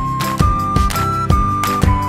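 Background music: a simple melody of held notes over a steady beat.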